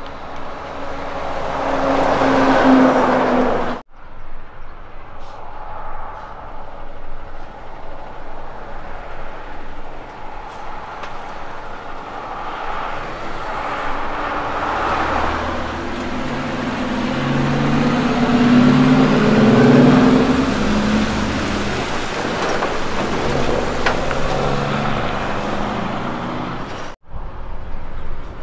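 Heavy diesel prime movers hauling livestock crates: one passes close and loud, then after a cut another pulls away from an intersection, its engine pitch climbing and dropping back several times as it works up through the gears.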